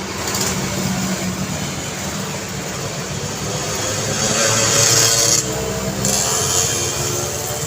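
Road traffic with a vehicle passing close by. Tyre and engine noise builds to a peak about five seconds in, with the engine pitch sliding as it goes past, then eases off.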